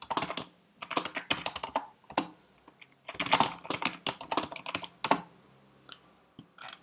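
Typing on a computer keyboard: quick runs of keystrokes with short pauses between them, thinning out to a few single clicks near the end.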